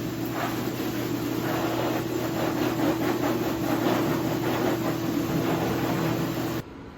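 A steady machine hum with a rushing, airy noise over it, stopping abruptly near the end.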